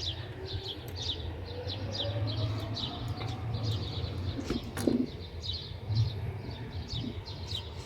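Small birds chirping over and over in short, quick, high notes over a low steady rumble, with a couple of knocks about five and six seconds in.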